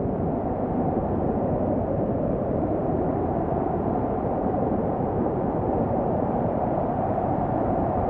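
Snowstorm wind blowing as a steady, deep rushing noise, even in level throughout.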